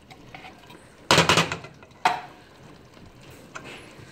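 Spatula and soup can working against a stainless steel pot while cream of mushroom soup is scraped out of the can into it. A short scraping clatter comes about a second in, then a sharp metallic knock with a brief ring about two seconds in.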